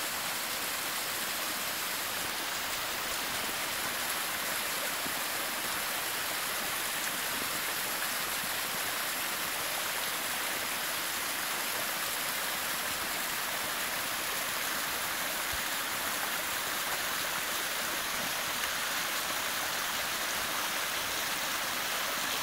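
Seasonal roadside waterfall, a double drop with another drop above, pouring down a steep face in a steady, even rush of falling water.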